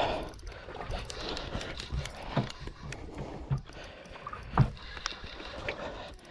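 Sea water lapping and sloshing against the hull of a drifting fishing boat, with a few sharp knocks.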